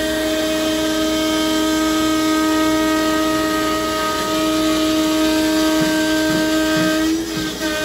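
Compact router spindle on a CNC machine running at high speed and carving into a wooden sign board: a steady high whine over the rush of a dust-collection hose sucking up chips. The whine wavers and dips briefly about seven seconds in.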